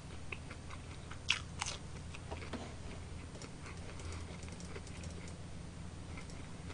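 A person chewing and biting food close to the microphone, with a few faint clicks over a low steady hum.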